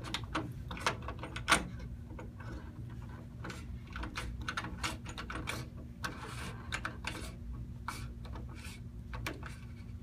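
Electronic mortise knob cylinder being screwed by hand into a mortise lock body with its installation tool: a run of small, irregular metal clicks and scrapes as its thread tries to grip, the sharpest click about a second and a half in.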